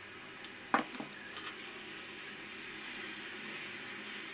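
Small sharp clicks and taps of a smartphone's display assembly and plastic frame being handled, the loudest a quick cluster about a second in and two light ticks near the end.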